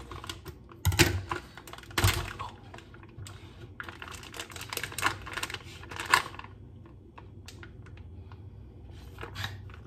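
Plastic packaging of raw steak crinkling and crackling as it is worked open by hand, hard to open. Sharp clicks come about one and two seconds in, denser crackling from about four to six seconds, then quieter rustling.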